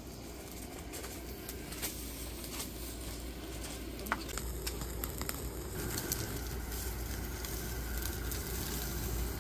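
Tomahawk steak sizzling on a wire grill over an open fire, with scattered sharp crackles from the fire and a low steady rumble underneath.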